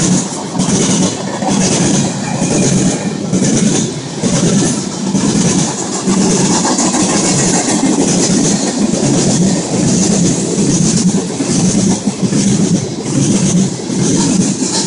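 Freight cars of a long train passing at speed: steel wheels rumbling on the rail and pounding over a switch frog in a fast, even clatter.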